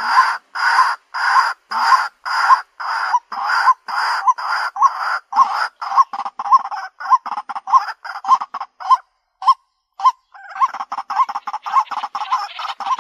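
White-breasted waterhen calling: a loud, repeated harsh 'kwak' note, about three a second at first and quickening through the run, with a short break about nine seconds in before a fast stream of notes resumes.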